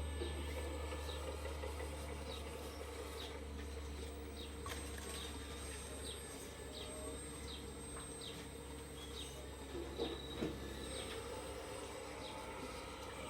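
Steady low hum of a radio-controlled hydraulic excavator's pump running, easing off about halfway, with short falling bird chirps repeating throughout and two sharp knocks about ten seconds in.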